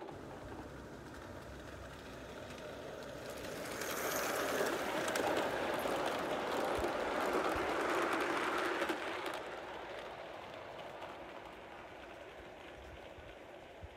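An O gauge model train rolling past on garden track with a mechanical running rattle. It grows louder to pass about four seconds in, then fades away after about nine seconds.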